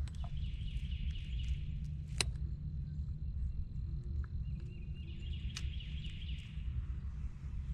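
Wind rumbling on a phone microphone over a wooded swamp, with a bird's high, rapidly repeated falling notes in two runs and two sharp clicks.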